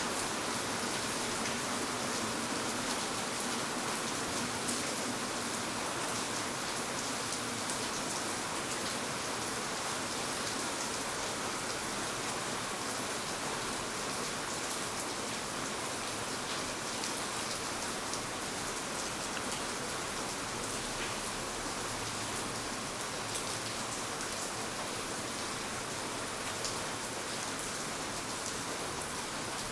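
Steady rain falling, with many fine drops pattering on surfaces.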